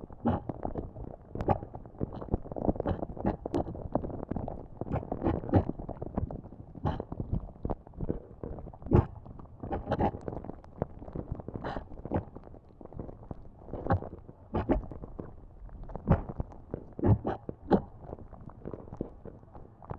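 Molten lava bubbling: a low gurgling rumble with irregular pops, several a second, a few of them sharper and louder.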